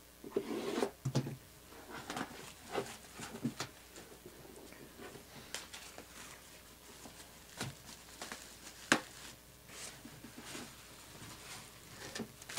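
Clear plastic shrink wrap being torn and peeled off a cardboard box: irregular crinkling and crackling, with a sharp click about nine seconds in.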